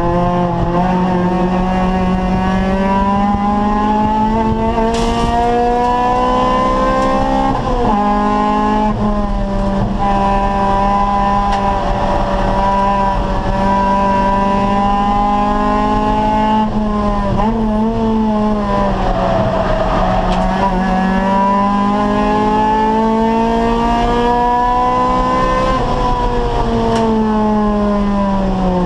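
Acura Integra race car's four-cylinder VTEC engine running hard at speed, its pitch climbing slowly and then dropping about eight seconds in, again around seventeen seconds and near the end as the gears change and the car slows for corners.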